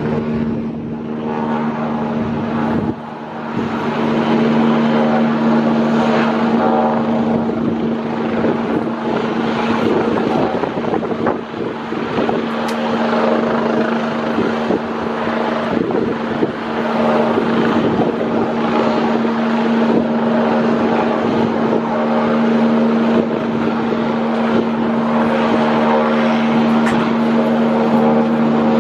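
Helicopter running steadily: a constant multi-tone engine and rotor hum, with wind buffeting the microphone.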